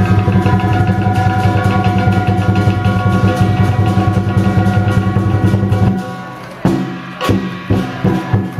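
Lion dance percussion: a rapid roll on the big lion drum with cymbals and gong ringing over it. About six seconds in the roll breaks off into separate loud strikes.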